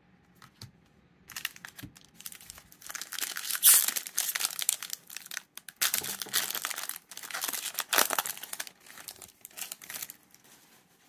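A Topps baseball card pack's wrapper being torn open and crinkled by hand: a run of crackling bursts starting about a second in, loudest around four and eight seconds in, stopping just before the end.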